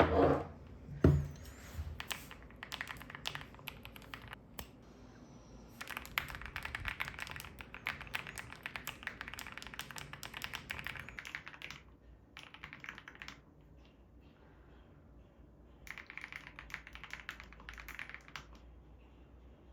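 Two loud knocks in the first second or so, then typing on a mechanical keyboard, a COX CF75 with orange switches, in quick runs of key clicks. The typing thins out about twelve seconds in and picks up again in a short burst a few seconds later.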